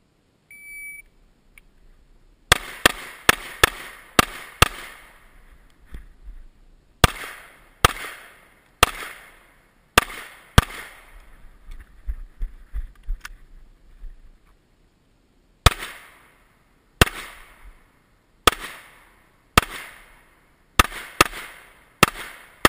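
An IPSC shot timer's start beep about half a second in, then semi-automatic pistol shots about two seconds later: a quick string of six, five more slower shots, a gap of a few seconds, then another string of about eight shots, each with a short echo.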